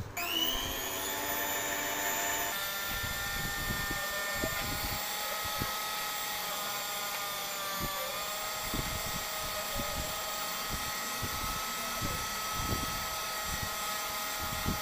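Electric hand mixer switched on and running steadily, beating fresh cream and sugar in a glass bowl. The motor whine rises as it spins up at the start and shifts slightly in pitch about two and a half seconds in, with faint irregular knocks underneath.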